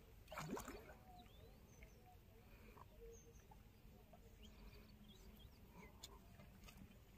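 Near silence: faint open-air ambience with scattered, faint bird chirps, and one short falling call about half a second in.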